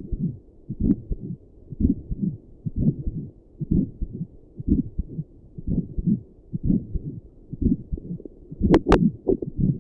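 A person's heartbeat picked up by a Doppler and a stethoscope at once: a steady beat at rest, a little under once a second (about 65 a minute). A couple of sharp clicks come near the end.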